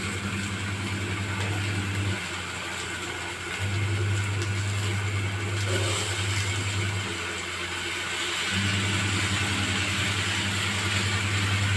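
A low steady hum that cuts out twice for about a second and a half, over a faint even hiss from vegetables frying in a wok on a gas stove.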